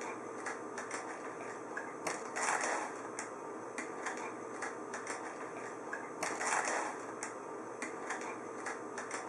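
Plastic magnetic letters clicking and tapping against a fridge door as a child sticks them on and shifts them about: small irregular clicks. Two brief hissing rustles come about two seconds in and again about six seconds in, over a faint steady hum.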